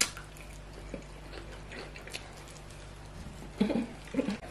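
Close-up mouth sounds of chewing skewered chicken gizzard and plantain: wet smacking and small clicks. A short low murmur comes near the end.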